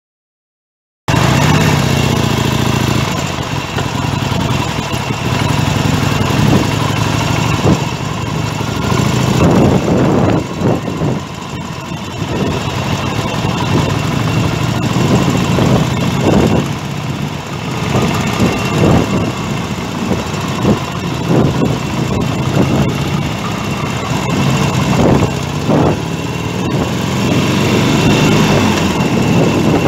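Motorcycle engine running as the bike is ridden along a road, heard from the bike itself with gusty wind noise on the microphone. It starts about a second in.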